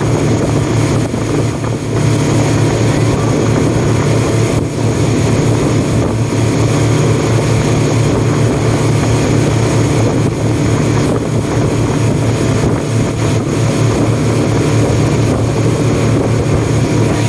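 Speedboat's engine running steadily under way, a continuous low drone, with wind rushing past the boat.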